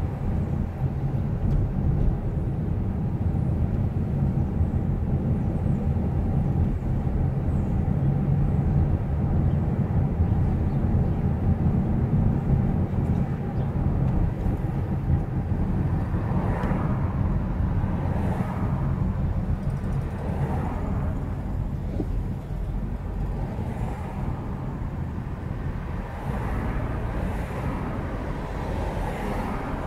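Steady low rumble of road and tyre noise from a car driving along a city street, with other traffic around it. In the second half a few faint sounds swell and fade, and the overall level eases slightly.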